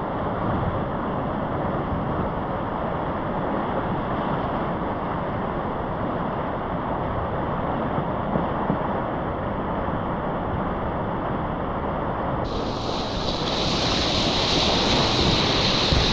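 Steady rush of whitewater from a standing river wave. About twelve seconds in, the sound turns brighter and hissier and a little louder.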